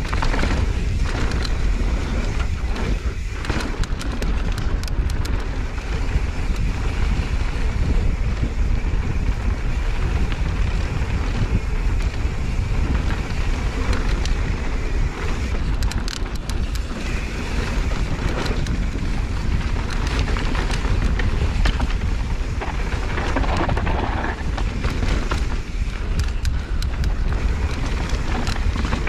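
Wind buffeting the microphone of an action camera on a mountain bike riding fast down dirt singletrack, a steady low rumble with many sharp clicks and rattles from the bike and tyres over rough ground.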